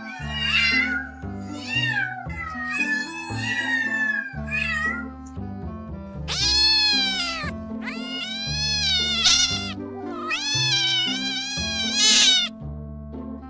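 Domestic cat meowing repeatedly over background music. A few shorter meows come first, then three long, loud meows in the second half, each rising and then falling in pitch.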